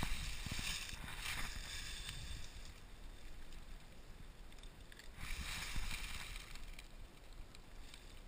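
Dry fallen leaves crunching and rustling under a person lying prone and shifting position, in a few short bursts: at the start, just over a second in, and for about a second and a half from five seconds in.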